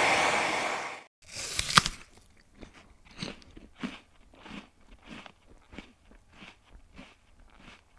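A hair dryer blowing, its even rush cutting off about a second in. Then a crisp bite into something crunchy, followed by steady crunchy chewing, a little under two chews a second.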